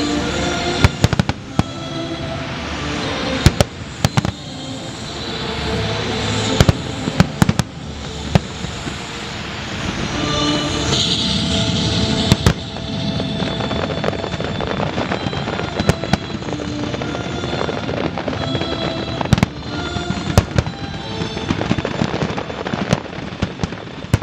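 Aerial fireworks going off: a rapid run of sharp bangs and crackling bursts, several very loud, over orchestral music.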